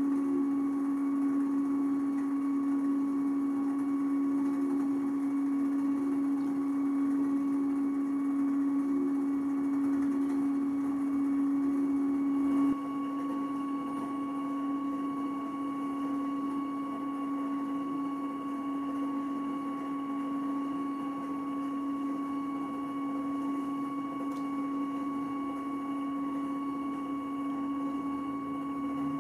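Stepper motor of a 3D-printed zoetrope sculpture whining steadily as it turns the drum, a low steady tone with a fainter higher one above it. The sound drops suddenly in level a little under halfway through, then carries on steadily.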